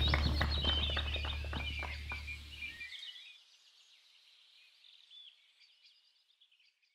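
Birds chirping, with clapping and a low hum underneath that fade out about three seconds in; the birdsong then fades away near the end.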